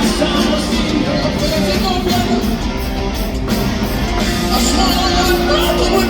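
Live rock band playing loudly, with guitar and a steady drum beat.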